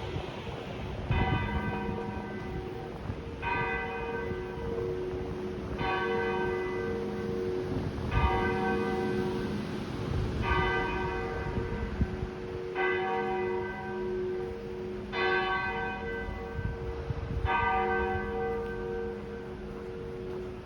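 A large bell tolling, struck eight times at an even pace a little over two seconds apart, its low hum ringing on between strokes. Wind buffets the microphone underneath.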